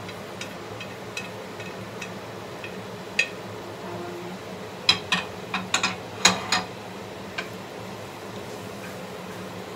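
Kitchen clatter: a quick cluster of sharp knocks about five to six and a half seconds in, as a serving plate is set down on the stovetop and a wooden spatula knocks into a frying pan to start stirring, with a few lighter ticks earlier. A steady low hum runs underneath.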